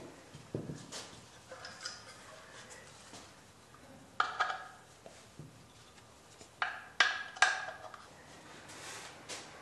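Wooden drawer parts of an old sewing-machine cabinet being handled and fitted together by hand: scattered sharp wooden knocks and clicks, a cluster about four seconds in and the loudest pair about seven seconds in.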